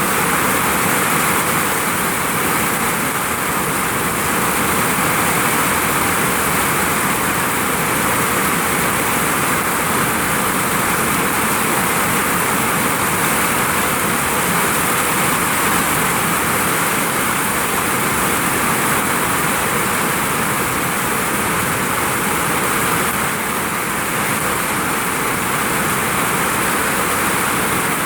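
Heavy rain pouring onto a vinyl roof: a loud, steady, dense hiss of drops.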